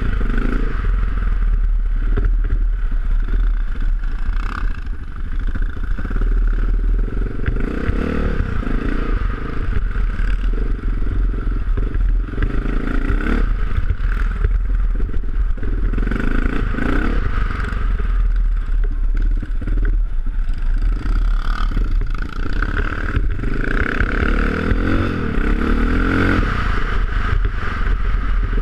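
Vintage enduro dirt bike's engine running hard, its pitch rising and falling again and again as the rider revs through the gears along a rough trail, heard from a camera mounted on the bike. The bike clatters over the bumps.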